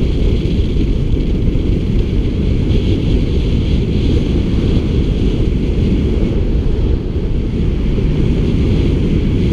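Steady rumble of wind buffeting the microphone of a camera riding on a moving road bicycle.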